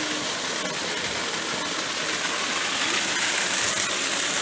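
Steady rushing of running water at a mill's water wheel.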